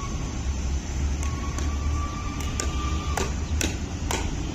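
Pickleball paddles striking a plastic ball in a fast volley exchange: about eight sharp pops, roughly two a second, starting about a second in. A steady low rumble runs underneath.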